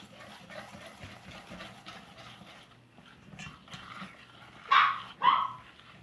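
A dog barking: two loud, short barks close together near the end, after some faint clicking and rustling.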